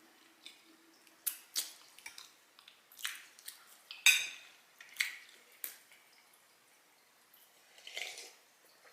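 Close-miked eating sounds: wet mouth smacks and clicks from chewing, coming irregularly, the loudest about four seconds in.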